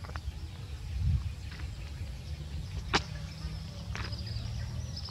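Low, steady outdoor rumble of wind on the microphone, with a few faint clicks and one sharp click about three seconds in.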